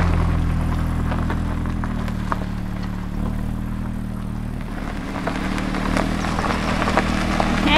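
A motor running with a steady low hum that dips a little in level and comes back, with a few light clicks.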